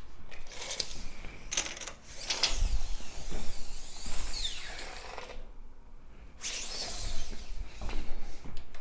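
Retractable steel tape measure being pulled out, its blade rattling and clicking as it extends, in two spells with a short pause between.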